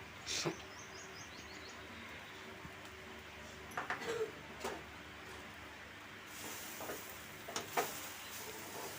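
A ladle stirring seasoned soaked puffed rice in a pan, with a few sharp knocks and scrapes of the ladle against the pan over a low steady background.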